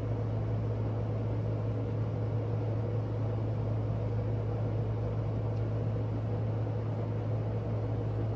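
A steady low mechanical hum with a fainter higher tone above it and a light hiss, unchanging throughout.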